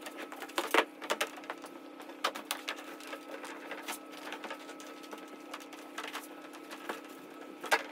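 Scattered light knocks and clicks from metal sheet being handled and pressed over a wooden roll, a few of them louder, over a steady low hum.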